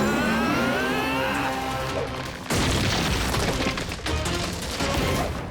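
Animated-action soundtrack: background music with rising sweeping tones, then a sudden loud boom about two and a half seconds in that carries on as a dense rumble.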